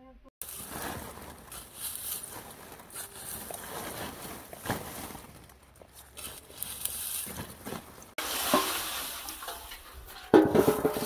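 Rustling and light knocks from dry leaves, straw and fuel being handled. Near the end comes a louder scraping and ringing as a large metal lid is dragged off the clay rim of a pit tandoor.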